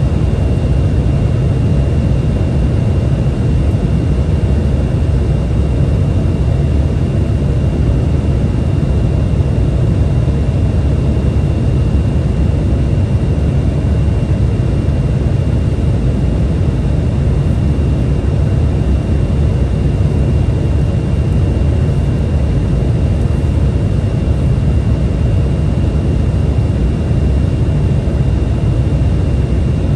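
Steady cabin noise inside an Embraer 175 regional jet in flight: a constant low rumble of airflow and its two CF34 turbofan engines, with a thin steady high whine over it.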